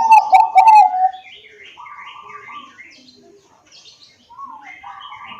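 Bangkok-type zebra dove (perkutut) cooing loudly in a short phrase of hooked notes, over in about a second, with faint chirping from small birds after it.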